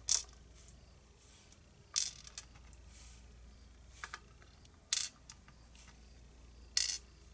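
Small metal clicks and clinks, about six scattered sharp ones, as the parts of a disassembled pin tumbler lock are handled and set down in a tray.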